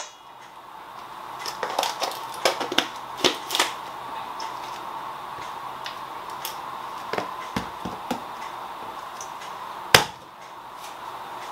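Spice jars and their lids clicking and knocking against a countertop as they are handled and set down, in a few quick runs of clicks, with one sharp knock near the end, over a faint steady hum.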